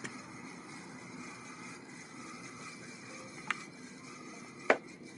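Steady hiss with a faint hum on a small fishing boat, broken by three sharp knocks on board; the loudest comes near the end.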